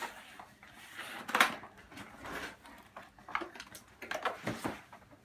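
Cardboard box being opened by hand: flaps and packaging rustling, scraping and knocking irregularly, with a sharper knock about a second and a half in.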